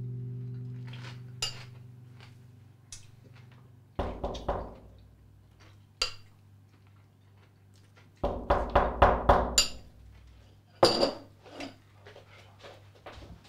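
Spoon clinking and scraping in a crockery bowl, and dishes and cutlery being knocked and set down on a kitchen counter, in scattered sharp clinks. The loudest part is a quick run of several clattering knocks about two-thirds of the way through.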